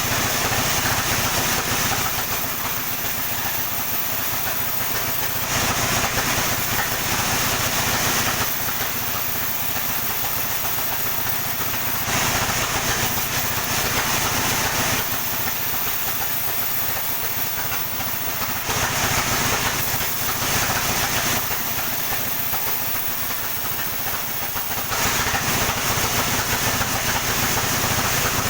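Sawmill running steadily while sawing a coconut palm trunk, with a constant low engine hum. A loud, hissing cutting noise swells for a few seconds about every six and a half seconds, five times.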